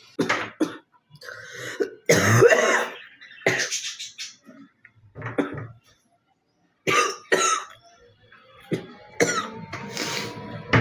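A girl coughing: single coughs and short fits with pauses between, the longest fit about two seconds in.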